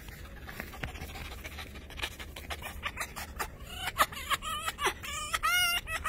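Red fox chattering while being petted: rapid clicks, then a string of short, high, wavering whining calls that grow louder near the end.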